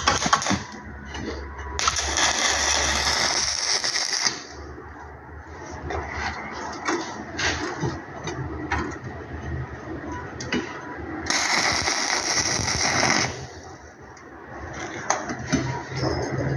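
Stick (arc) welding: the electrode's arc crackling and sputtering, with louder, hissier stretches about two seconds in and again past the middle.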